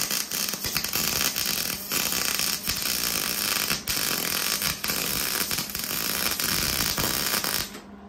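Electric arc welding on galvanized steel strut: the arc's steady, dense crackle and sizzle, which cuts off suddenly near the end. The welder says the zinc galvanizing is keeping the weld from burning in well.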